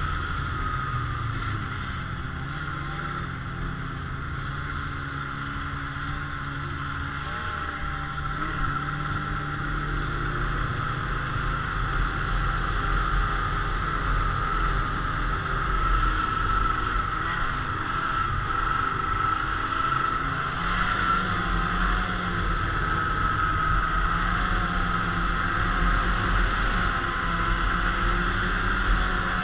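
Polaris snowmobile engine and track running steadily at trail cruising speed, with a steady high whine over a low rumble. The engine note wavers with small throttle changes and gets a little louder about a third of the way in.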